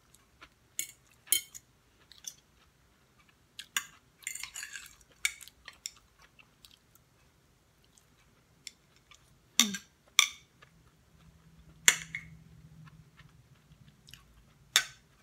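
A person eating crab: irregular chewing and sucking sounds with sharp clicks of shell, broken by quiet pauses.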